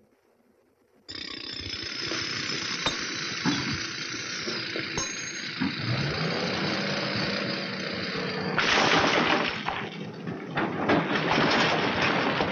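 A quarry truck's engine running, starting suddenly about a second in, its note rising from about six seconds. About eight and a half seconds in, a load of broken rock in the truck's tipping skip rattles and crashes loudly, with many stones knocking together.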